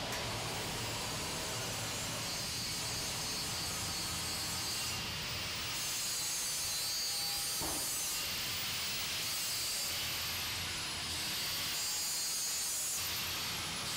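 Steady hissing shop noise of metal being ground, with a few high whining sweeps near the end as a grinder throws sparks off steel.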